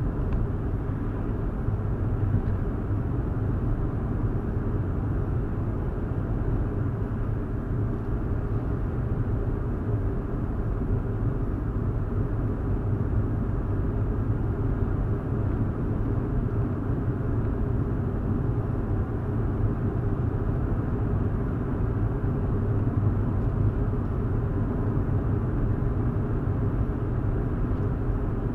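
Steady road noise of a 2015 Hyundai i20 driving at an even pace, heard from inside the cabin: a low, unchanging rumble of engine and tyres.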